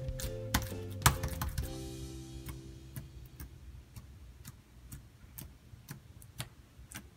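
Background music fading out over the first couple of seconds, then soft irregular clicks and pops, one or two a second, of fingers poking and pressing into a sticky body wash slime.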